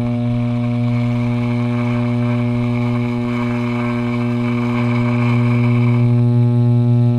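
Wahl electric hair clippers buzzing steadily, very close to the microphone, while cutting through a thick beard; the rasp of hair going through the blades stops about six seconds in, leaving the clippers' plain hum.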